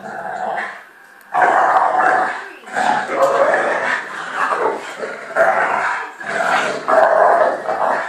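American bulldog and puppy growling during rough play, in repeated bouts of about a second each starting a little over a second in.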